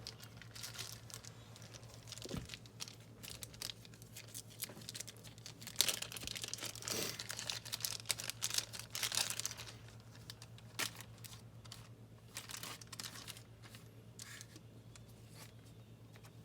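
Thin plastic trading-card sleeves being handled, crinkling and rustling in irregular bursts, busiest from about six to nine and a half seconds in.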